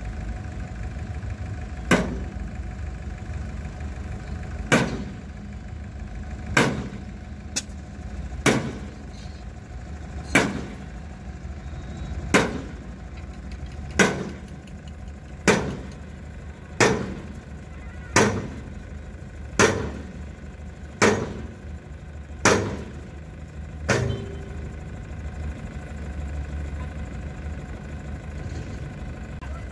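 Escort Hydra 14 crane's engine running steadily, with about fourteen sharp strikes, each ringing briefly, coming roughly one every one and a half to two seconds and stopping a few seconds before the end.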